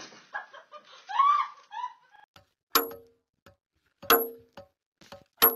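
A short laugh, then three sharp ringing metal clanks about a second and a half apart: a sledgehammer striking a line of steel wedges driven into a stone boulder to split it.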